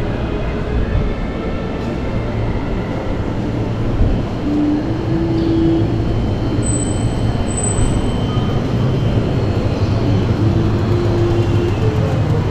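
A train passing: a steady, loud rumble with a short high squeal about halfway through.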